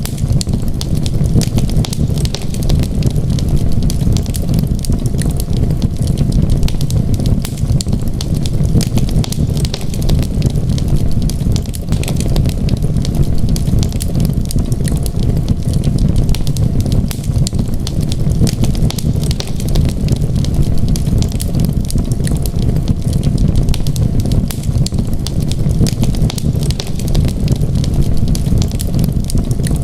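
Wood fire crackling: a steady low rumble of burning flames with many small, sharp pops and crackles throughout.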